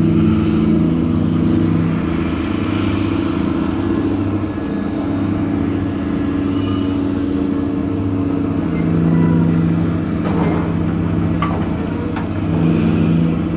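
Diesel engine of a gut ship's cargo-handling gear running under load during unloading: a steady drone whose pitch and load shift a few times, with a couple of sharp metallic clanks about ten and eleven seconds in.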